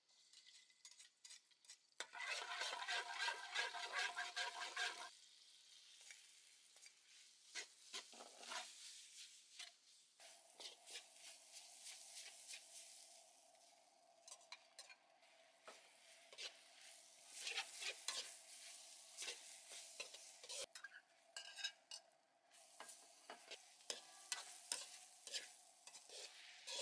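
Noodles, beef and vegetables sizzling in hot oil in a wok while a metal perforated ladle stirs them, scraping and clicking against the pan. The sizzle is loudest for about three seconds starting two seconds in, then continues softer under the repeated ladle clicks.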